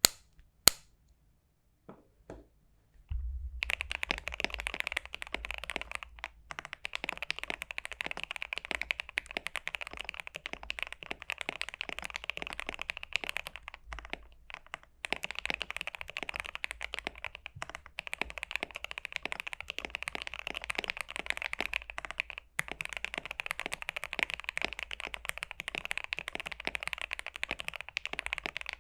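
Mechanical keyboard being typed on: a KBD67 Lite R2 with tape and PE-foam mods, lubed and filmed Gateron Cap Yellow V2 linear switches and GeekArk BoW keycaps. A few single key presses come first, then fast continuous typing from about three and a half seconds in, broken by a few brief pauses.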